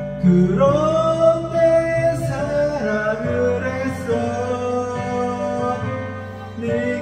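A man singing a slow Korean pop ballad over a karaoke backing track, holding long notes.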